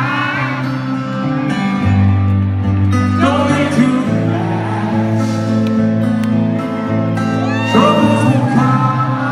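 Live amplified acoustic guitar playing chords with singing over an arena PA, recorded from among the audience.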